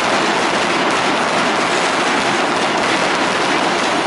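Ground fountain firework (gerb) spraying a tall column of sparks, giving a steady, dense hiss with a fine crackle and no separate bangs.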